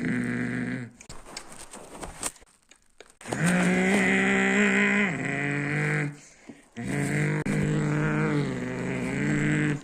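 Lamborghini Urus's twin-turbo V8 being revved: a held rev that drops away just after the start, a quieter lull, then two more revs, each climbing quickly and held steady for two to three seconds.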